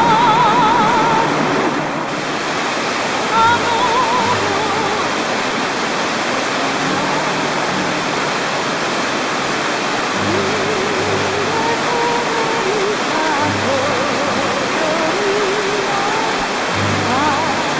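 Steady rush of a small waterfall cascading over rocks, close by, with music playing over it, held low notes and a wavering melody line.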